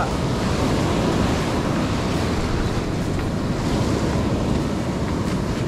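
Ocean surf washing on a beach, with wind blowing across the microphone; a steady rushing noise.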